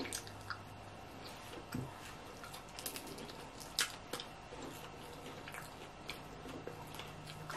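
Faint chewing and wet mouth sounds of someone eating a fried chicken wing by hand, with scattered small clicks and smacks, one a little louder about four seconds in.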